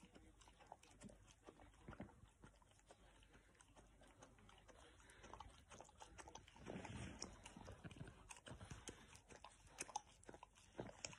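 French bulldog puppy licking ice cream on a stick: faint, wet smacking and lapping clicks, with a louder stretch a little past halfway.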